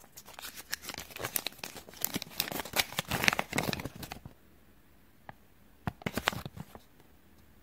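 Paper crinkling as a small folded Kinder Joy toy leaflet is unfolded: a dense spell of crisp crackles for the first few seconds, then a short second burst a couple of seconds later.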